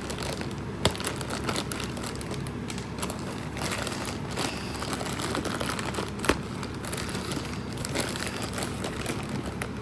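Plastic packaging crinkling and rustling as a parcel is handled and opened by hand, with a sharp click about a second in and another about six seconds in.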